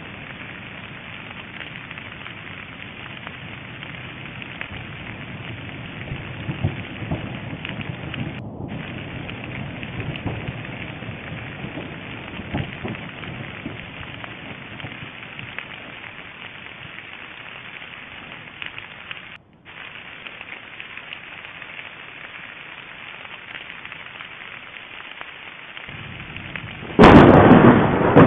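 Steady rushing noise with faint low rumbling while Sakurajima volcano erupts, then a sudden very loud boom near the end.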